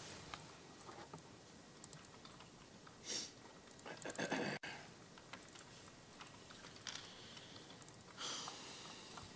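Faint clicking of typing on computer keyboards, with a few short rustles.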